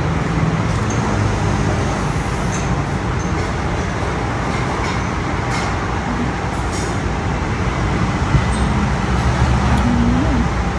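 Steady rumble of road traffic, with a few faint clicks over it.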